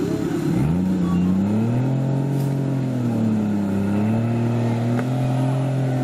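Off-road 4x4's engine revving under load as the truck climbs out of a mud-filled trench, its pitch rising in the first second or two, then holding and wavering.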